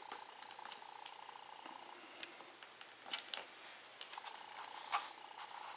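Faint, scattered sharp clicks and creaks from the plastic case of a Sansa Clip+ MP3 player being worked apart by hand, its snap clips giving way. A faint steady hum underneath fades out about two seconds in.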